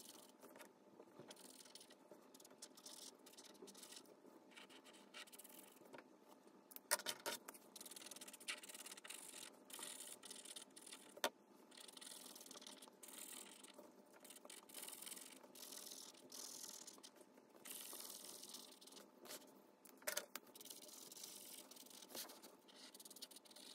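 Felt-tip marker tip scratching across paper in repeated short colouring strokes, faint, with a few sharp clicks as markers are handled, the loudest about 7 and 11 seconds in and again around 20 seconds.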